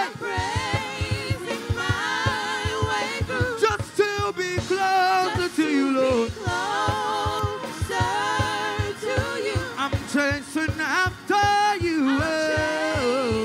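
Gospel praise song sung by a man and two women into microphones, their voices blending and trading lines, over a steady low drum beat of about three thumps a second.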